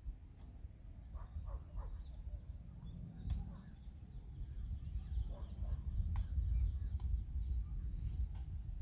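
Rural ambience: wind rumbling on the microphone, growing stronger about halfway through, under a steady high insect drone. Faint short chirps, likely birds, come and go, along with a few sharp clicks.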